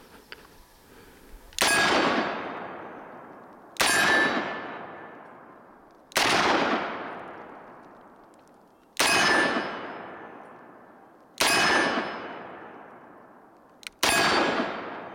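Six .357 Magnum shots from a Smith & Wesson 586 revolver, fired one at a time about two to three seconds apart, each ringing out and fading over about two seconds.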